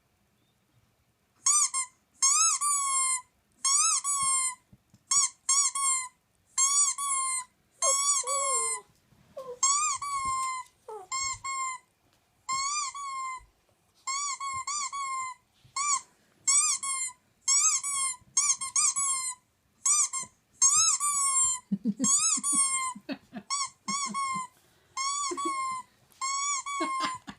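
Squeak toy sound effect playing, squeaking over and over, about one to two short rising-and-falling squeaks a second, starting about a second and a half in.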